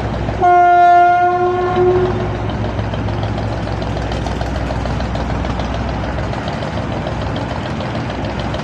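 A river passenger launch's horn sounds one blast of about a second and a half, starting about half a second in. Under it a steady low engine rumble carries on.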